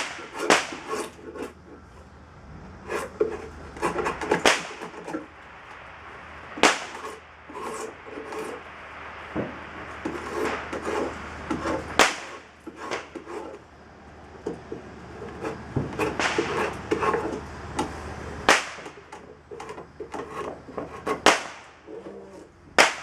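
Drawknife shaving green black locust on a shave horse: repeated scraping cutting strokes as the thick middle of a hatchet handle blank is thinned to a waist, with sharp wooden knocks every few seconds.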